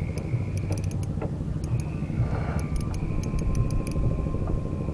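A steady low motor rumble, with scattered light ticks over it.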